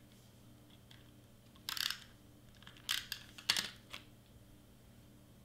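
Paper and cardstock pieces handled and pressed down on a craft mat: a few short, scratchy rustles about two, three and three and a half seconds in.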